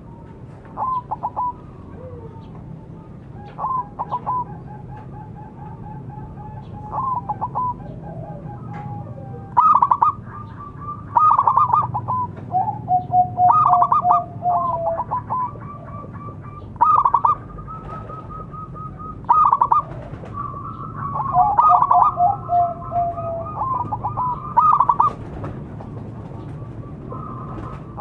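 Zebra dove (perkutut) cooing: phrase after phrase of rapid, stuttering trilled coos, repeated every second or two with short pauses between.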